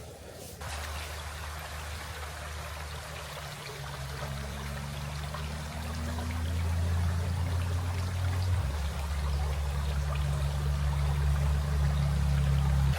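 Flowing river water: a steady rushing with a low rumble. It starts abruptly about half a second in and grows louder toward the end.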